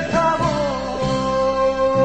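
Background music: a Korean song with a held melody note over band accompaniment.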